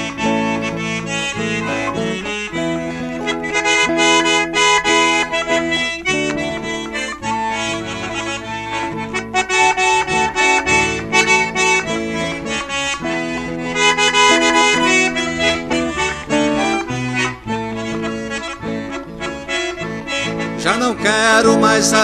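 Piano accordion (sanfona) playing an instrumental interlude between hymn verses: a lively melody over sustained chords.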